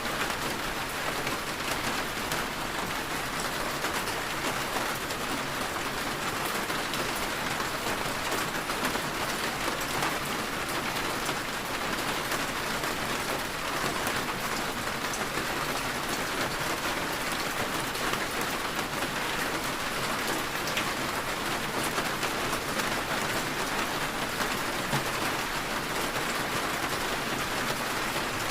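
Steady rain falling on a surface, an even patter with fine drop crackle and no change in intensity.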